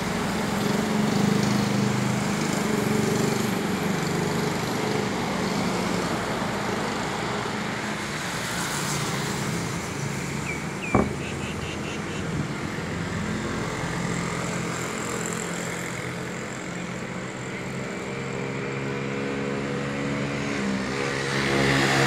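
Road traffic passing on a wet street: car and motorbike engines running, with tyre hiss. A single sharp click about eleven seconds in.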